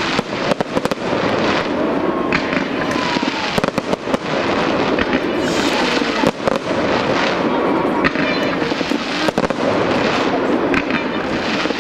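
Fireworks display: aerial shells bursting in a dense run of bangs and crackling.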